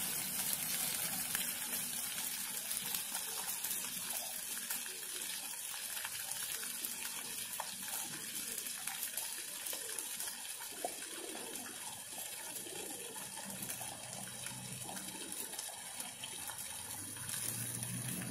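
Ground-level splash fountain's water jets spraying and splashing onto the wet paving, a steady rush of water.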